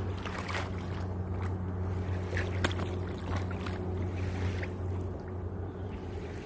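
A boat engine droning steadily at one low pitch, easing off near the end, with a few light knocks, one sharper than the rest about two and a half seconds in.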